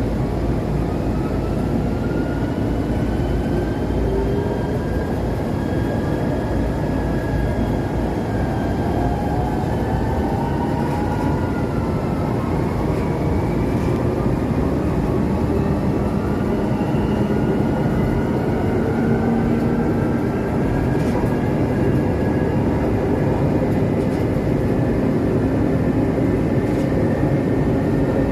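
ČKD Tatra RT8D5M light rail train running on the track: a steady rumble from the wheels and bogies, with whining tones above it that glide up and down in pitch.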